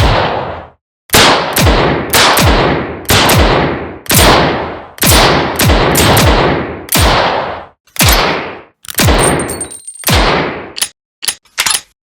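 Revolver gunshots fired in quick succession, about two a second, each with a ringing, echoing tail. Near the end they give way to a quick run of smaller metallic clicks and clinks.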